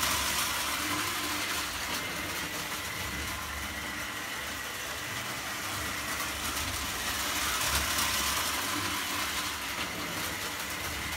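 Prewar Lionel O-gauge tinplate train running on the layout's metal three-rail track: a steady rolling clatter of wheels and the electric motor, with a faint steady hum.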